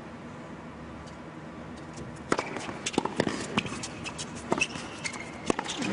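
A tennis rally on an indoor hard court: sharp racket strikes and ball bounces with short shoe squeaks, starting about two seconds in over a hushed arena crowd.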